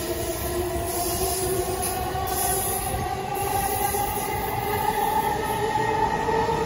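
Orange-banded Chuo Line electric commuter train moving along the far track, its traction motors whining and rising steadily in pitch as it picks up speed, over the rumble of wheels on rail.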